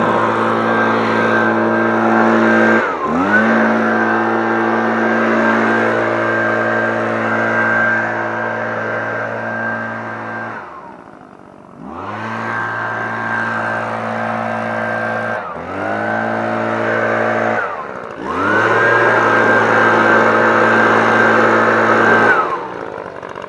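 Leaf blower running at full throttle, its pitch dipping and climbing back about four times as the throttle is let off and squeezed again, one dip about ten seconds in falling almost to quiet. It drops to a lower, quieter running near the end.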